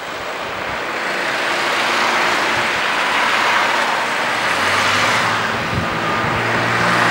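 Diesel engine of a railway engineering vehicle running over a broad rushing noise, with a steady low engine hum coming in about halfway through.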